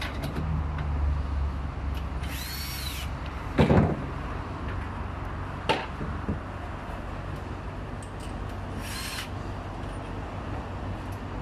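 Power drill running in two short bursts, its whine rising and falling each time, with a loud knock between them and a few lighter clicks, over a steady low rumble.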